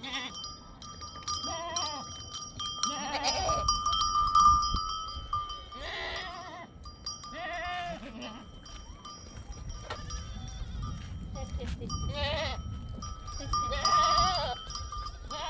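A flock of sheep bleating, several calls a second or two apart, with the bells on the animals ringing steadily.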